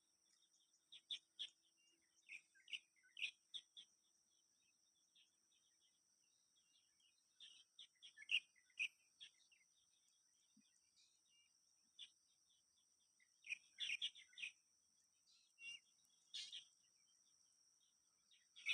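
Small birds chirping faintly in short, irregular bursts, with livelier clusters of chirps about a second, three seconds, eight seconds and fourteen seconds in.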